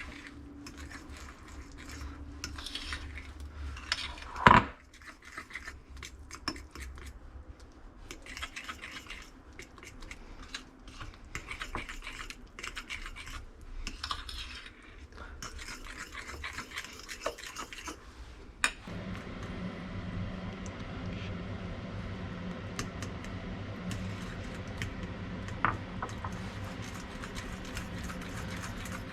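Kitchen dishes and utensils clattering and scraping, with one sharp clang about four and a half seconds in. About two-thirds of the way through, a steady machine hum starts and keeps going.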